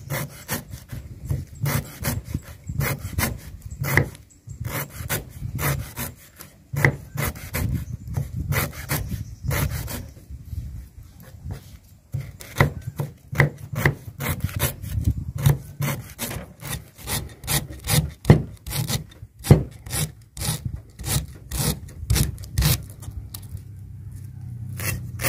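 Cleaver slicing and mincing fresh lemongrass stalks on a wooden chopping board: a quick, steady run of knocks, several a second, each stroke cutting through the stalks and striking the board.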